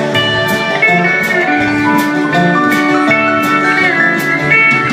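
Live band playing an instrumental passage between sung verses: strummed acoustic guitar, upright bass and drum kit with steady cymbal strikes, under held pedal steel guitar notes that slide in pitch near the end.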